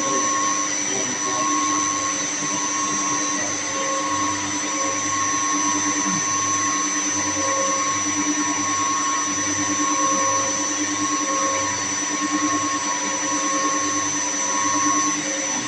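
Running chilled water pumps and their electric motors, a steady machine drone with a high whine, over a low hum that pulses evenly about one and a half times a second.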